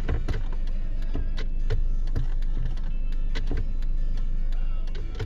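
Car audio unit playing music, staying on while the engine idles under electrical load after a corroded battery terminal was cleaned, with a steady low hum and irregular sharp clicks.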